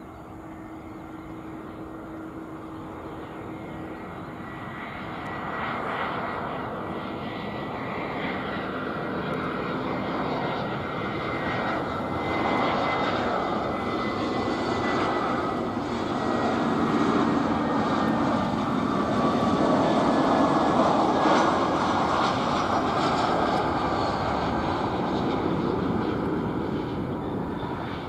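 Airbus A320 jet engines on landing approach. The noise grows louder as the airliner comes in and passes, peaks about three-quarters of the way through, then eases a little, with a faint high tone slowly falling in pitch.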